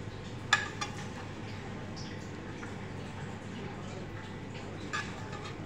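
Metal spoon clinking against a ceramic serving bowl: a sharp clink about half a second in, a fainter one just after, and another near the end, over a steady low background hiss.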